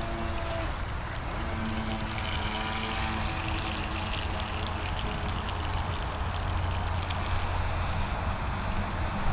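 Small motorboat running on the water, its motor tone rising in pitch a second or two in, over splashing water noise and a steady low wind rumble on the microphone.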